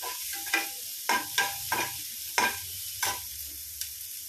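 A steel slotted spoon scraping and clinking against a frying pan as chopped onion is stirred in sizzling oil, about seven strokes in the first three seconds. The stirring then stops and the oil keeps sizzling steadily.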